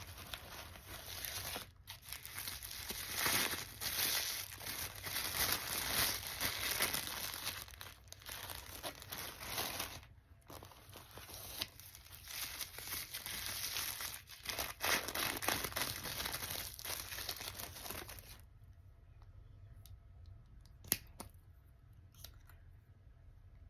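Packaging being torn open and crumpled by hand, a dense crinkling for about eighteen seconds, then a few light clicks and taps.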